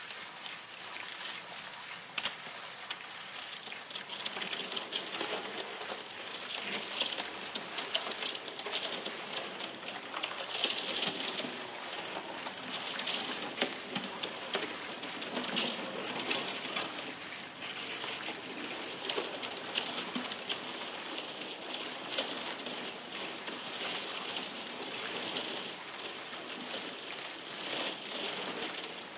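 A dense, continuous crackling and fizzing texture made from recordings of thawing pond ice sheets cracking and breaking over a rock, granulated and processed by computer into electronic sound collage.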